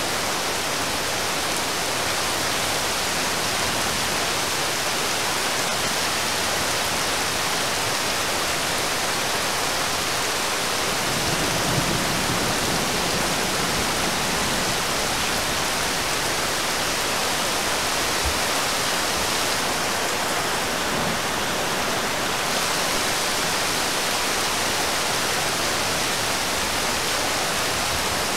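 Heavy rain falling on a river's surface, a steady dense hiss. A brief low rumble rises under it about eleven seconds in.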